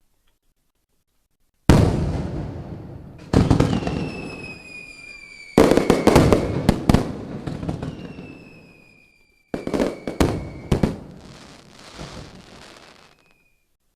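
Four sudden bangs, each followed by crackling that dies away over a few seconds, with a high whistle sliding slowly down in pitch through the middle of the sequence.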